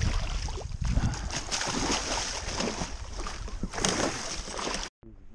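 A big fish thrashing in a landing net at the water's surface, splashing and churning the water in irregular surges; it cuts off abruptly near the end.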